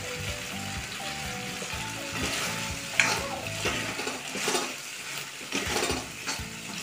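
A metal spatula stirring and scraping chilli paneer in a thick sauce in a wok, with the food sizzling. The stirring strokes start about two seconds in and come irregularly, with one sharp scrape or knock against the pan about three seconds in.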